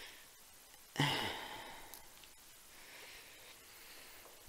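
A person's soft sigh, an exhale starting about a second in and fading over about a second, followed by a fainter breath a couple of seconds later.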